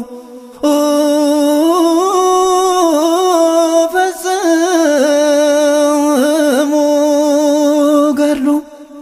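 Solo voice singing an Ethiopian Orthodox hymn (mezmur) to St. Gabriel, in long, wavering melismatic lines with no accompaniment heard. It breaks for a short breath at the start and again near the end.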